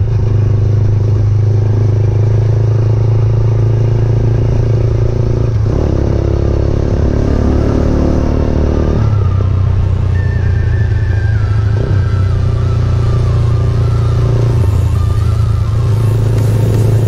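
GPX Legend Gentleman 200 motorcycle engine running steadily under way. About six seconds in its pitch climbs for a few seconds, then drops suddenly.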